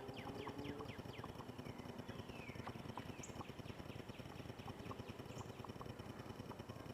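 Small birds chirping, with a quick run of short falling chirps in the first second or so and scattered calls after, over a steady low crackling noise.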